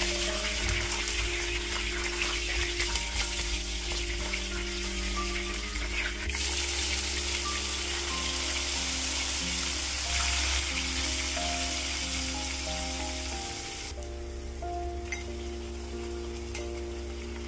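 Curry leaves, lemongrass and cinnamon sizzling in hot oil in a wok while being stirred with a spatula. About six seconds in the sizzle grows louder as a wet blended onion, garlic and ginger paste goes into the oil, then drops back about fourteen seconds in.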